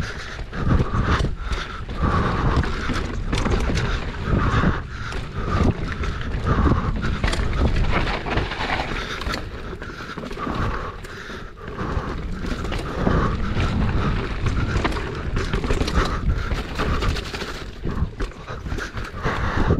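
Mountain bike riding down a dirt and rock trail: knobby tyres rumbling and scraping over the ground, with the bike rattling and knocking over the bumps throughout.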